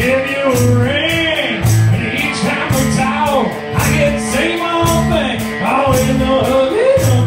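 Live band playing an upbeat country-rock song: a male lead vocal over strummed guitar, keyboard and a steady drum beat.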